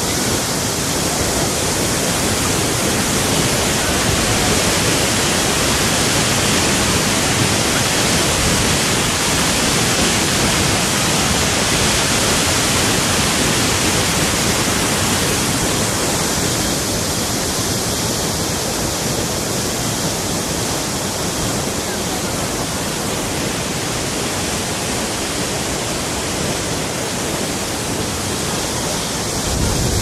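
A waterfall's falling water making a loud, steady rushing noise that stays even throughout.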